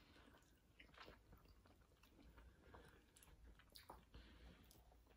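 Faint chewing and small mouth clicks of people eating soft cookies and ice cream; near silence otherwise.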